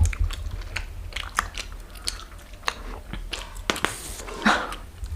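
Wet chewing of a big mouthful of bubble gum close to the microphone: irregular sticky smacks and clicks. About four seconds in there is a short breathy puff, followed by a brief vocal sound.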